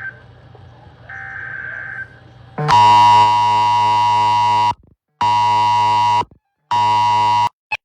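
Emergency Alert System data header on weather radio: three loud, buzzy bursts of electronic tones with short silences between them. The first burst lasts about two seconds and the next two are shorter. They mark the start of a new alert, here a tornado warning. A fainter steady beep sounds about a second in, before the bursts.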